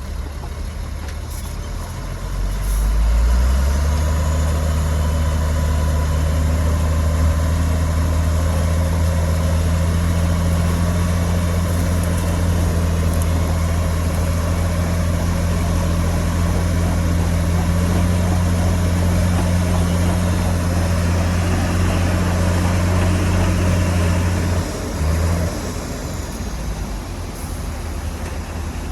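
Heavy diesel engine of earthmoving machinery running steadily with a deep low hum. It grows louder a few seconds in and drops away about three-quarters through.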